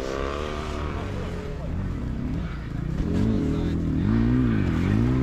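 Sidecar motocross motorcycle engines running under racing load; in the second half an engine revs up and drops back about three times in quick succession.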